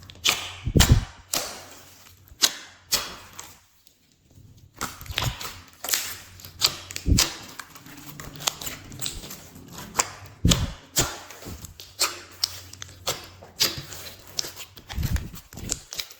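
Glossy slime being squished and folded by hand, giving irregular sticky pops and clicks, several a second.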